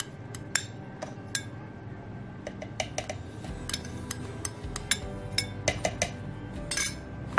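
A spoon clinking and scraping against a glass bowl and the rim of a blender jar as thick cream is spooned in: a string of irregular sharp taps, with a brighter cluster of clinks near the end.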